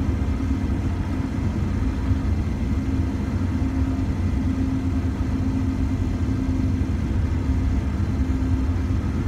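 Pickup truck driving, heard from inside the cab: a steady low rumble of engine and road noise with a droning hum over it.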